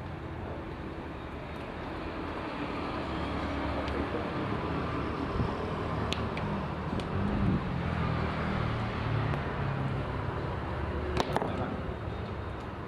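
Parsun 3.6 HP outboard motor running, its note shifting a little in the middle, with a few sharp clicks.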